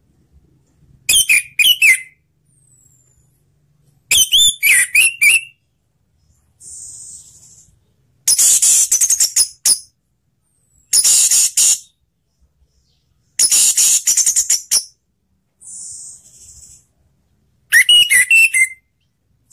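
Orange-headed thrush (anis merah) singing. Short phrases of loud whistles with quick pitch glides come about a second in, again at four seconds and near the end. In between are three bursts of fast, high, scratchy chattering and two softer hissing notes, with pauses between phrases.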